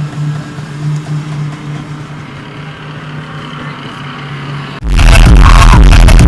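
A steady low hum with a low tone pulsing on and off, then loud electronic music cuts in abruptly near the end.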